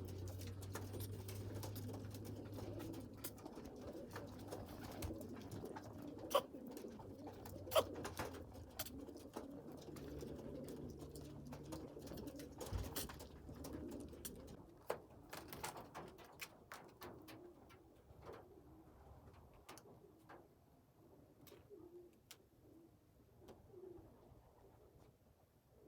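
Domestic pigeons cooing at a low level, with scattered sharp clicks and taps among them. It grows quieter in the last third.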